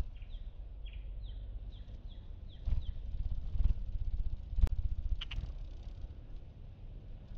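Hummingbird at a feeder: a quick series of about eight short, high, falling chip notes in the first three seconds and a few more later, over a low fluttering hum from its wings. One sharp click comes near five seconds.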